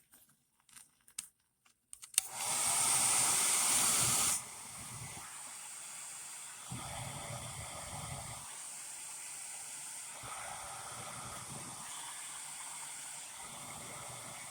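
A UCO Titan stormproof match is struck about two seconds in and flares with a loud hiss for about two seconds. It then burns on with a quieter steady hiss. Low rumbling gusts from the wind test come and go, and a few light clicks come before the strike.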